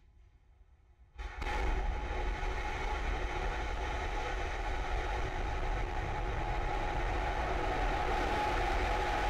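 Starhopper's single Raptor rocket engine igniting suddenly about a second in, then running with a steady, loud, deep rumble.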